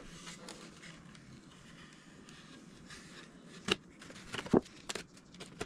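Masking tape being peeled off a balsa fuselage with light crackling, then several sharp clicks and taps over the last two seconds as the tape and balsa parts are handled.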